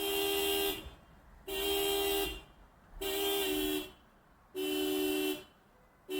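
Car horn honking by itself in a steady rhythm, one long beep about every second and a half. Each beep is steady in pitch, and a second, lower tone joins from about the middle on. The car's dying battery sets it off, as the uploader has it.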